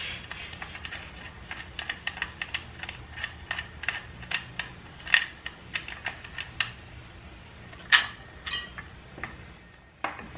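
Small metal clicks and taps coming irregularly, a few a second, with one louder clack about eight seconds in: a 10 mm socket being worked on the bolts of a motorcycle's air cleaner backing plate.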